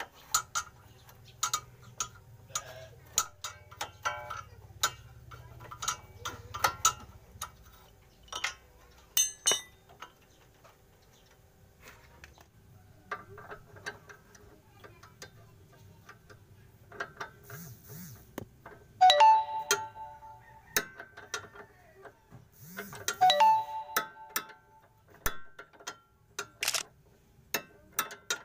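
Hand wrench working the nut of a front stabilizer link, giving irregular metallic clicks and clinks. Twice in the second half there is a louder ringing clank of metal on metal.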